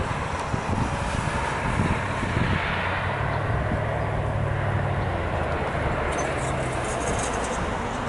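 Steady outdoor rush of wind and traffic, with a low engine hum from a passing vehicle swelling through the middle and fading out near the end.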